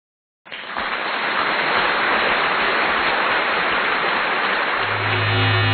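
A steady hiss of noise starts abruptly about half a second in and runs on evenly. Near the end, music comes in with a sustained low note.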